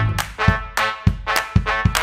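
Upbeat background music with a bouncy, steady beat and brass-like instrument notes.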